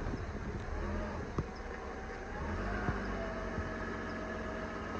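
SUV engine running at low revs as it reverses and pulls a tow chain taut on a crashed pickup's front end, straightening the bent front. There is a steady rumble with a faint drawn-out groaning tone and a few sharp clicks.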